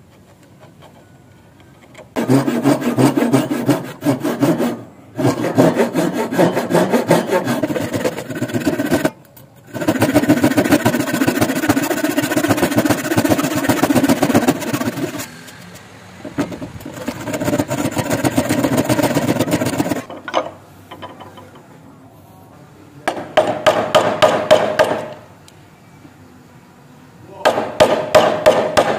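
Hand saw cutting into a wooden board with quick back-and-forth strokes, in long runs broken by two short pauses, sawing along the marked outline of a corner joint. After a few seconds of quiet, two shorter bursts of similar strokes follow near the end.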